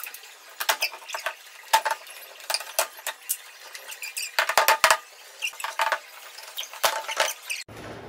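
Sharp squeaks and scrapes of plastic sign letters being pried and pulled off a wall, coming in irregular bursts, the densest cluster a little past the middle.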